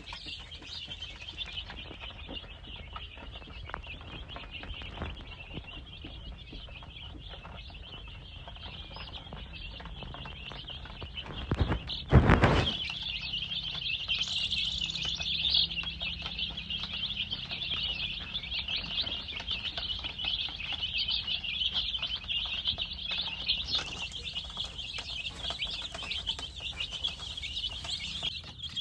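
A crowd of chicks peeping continuously, a dense high-pitched chorus of overlapping chirps. A brief loud bump about twelve seconds in.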